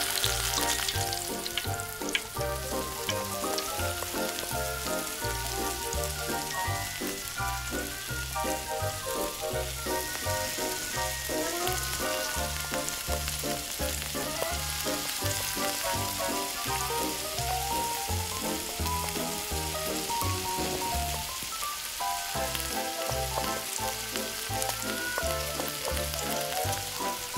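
Vegetables sizzling as they fry in hot oil in a miniature metal wok, stirred with a tiny wooden spoon, with background music playing over it.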